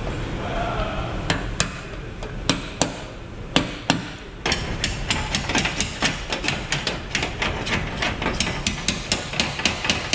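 Hammer blows on the steel of a Hyundai Tucson's roof, with a flat blade against the cut edge of the roof opening. A few sharp metallic strikes, spaced apart, come first. From about four and a half seconds in, a fast run of lighter taps follows, about four or five a second.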